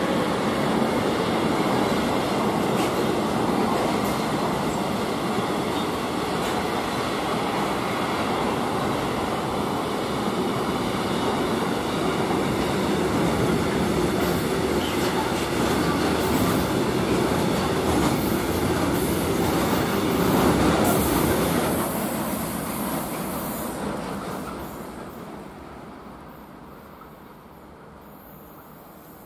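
Freight train wagons rolling past: a steady, loud rumble and clatter of steel wheels on the rails, which fades away from about 22 seconds in as the train's tail moves off.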